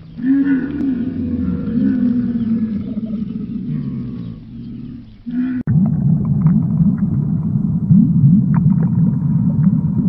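A dromedary camel gives low, drawn-out bellowing calls that rise and fall in pitch. About five and a half seconds in the sound cuts to water gurgling and bubbling, with many small pops and clicks, from a crowd of koi at the surface.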